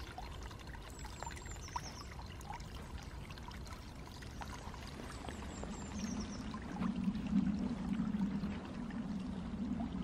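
Small woodland brook running, a soft steady water sound. A low rumble builds in from about six seconds in.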